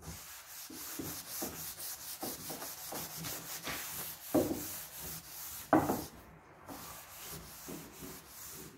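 Fine abrasive sanding pad scrubbed by hand over a solid oak door, working stripper into the old polyurethane finish: a quick, uneven run of rubbing strokes. Two louder knocks come about halfway through.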